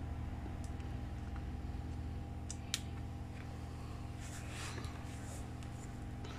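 Light clicks and scratches of metal tweezers handled over a laptop mainboard, with one sharper click about halfway through and a short scratchy rustle a little later as they are laid down on the mat. A steady low hum runs underneath.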